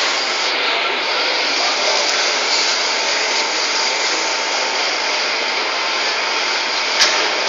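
Match splint chopping machine running, its motor-driven flywheels and cutting mechanism making a loud, steady mechanical whir. There is one sharp click near the end.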